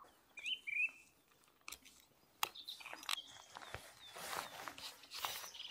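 A bird gives a short chirping call near the start. From about halfway through come faint clicks and rustling as a fishing rod is handled, with a few more high bird notes.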